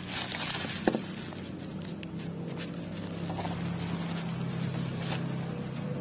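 A cardboard box and a plastic mailer bag with bubble wrap being handled: a rustle at the start and a sharp tap about a second in, with a few lighter knocks. A steady low hum runs underneath.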